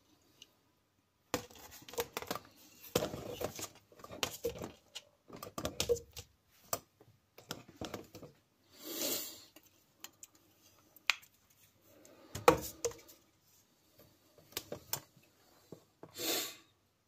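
Handling noise from a wooden-handled Opinel folding knife being moved about and set down on paper: irregular rubbing and rustling with scattered clicks and knocks, the sharpest a little past the middle, and two short swishes.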